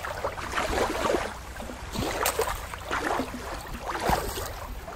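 Shallow water lapping and trickling over rock at the shore, with small irregular splashes.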